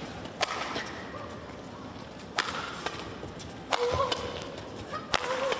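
Badminton rally: four sharp racket strikes on the shuttlecock about one to two seconds apart, with short squeaks of players' shoes on the court mat after the third and fourth strikes.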